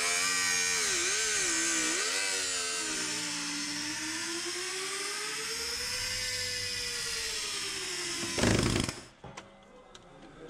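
Angle grinder with a cutting disc slicing through the steel rocker panel, its motor whine dipping and rising in pitch as the disc bites into the metal. About eight and a half seconds in it surges briefly and then stops, leaving a few sharp clicks and knocks.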